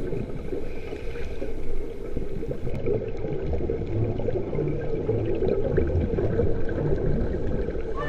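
Underwater water noise picked up through a camera housing: a dense muffled rush with crackly bubbling and low rumbles.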